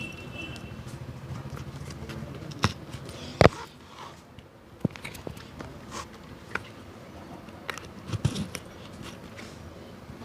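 Scattered sharp taps and knocks of a cobbler's tools working on a shoe, loudest about three and a half seconds in, over a faint steady hum that fades out soon after.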